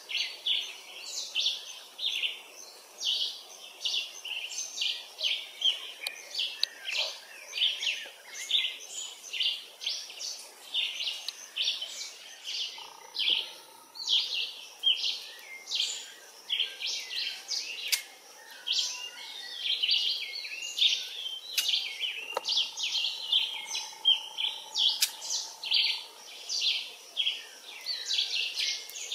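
A chorus of birds chirping, many short high calls following one another quickly and overlapping without a break.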